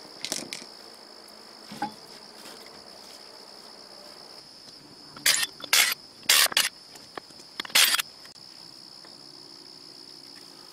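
A cordless power tool runs in several short bursts, taking the nuts off a bolt-on wheel spacer on a rear brake drum. A steady, high chirring of crickets runs underneath, and there are a couple of light knocks near the start.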